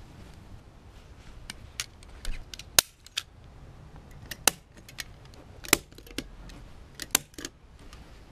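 Manual metal staple gun firing staples into a couch's frame, a series of sharp snaps at irregular intervals, about ten in all. The staples fasten the couch back's fabric to its wooden frame where a broken brace had been poking through.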